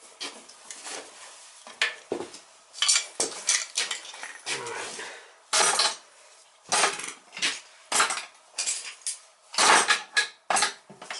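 Metal tools and parts clinking and clattering in a run of irregular knocks and scrapes, as hand work goes on at an oil burner.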